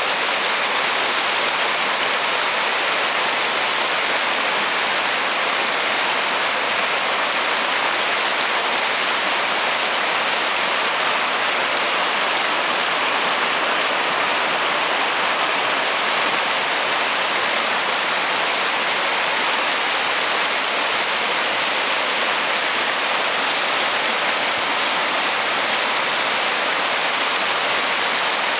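Rushing water of a shallow, rocky mountain river pouring over boulders and riffles: a steady, even rush with no let-up.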